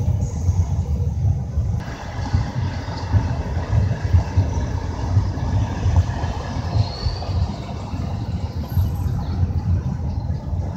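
Car cabin noise while driving slowly in city traffic: a steady low rumble of engine and tyres on the road.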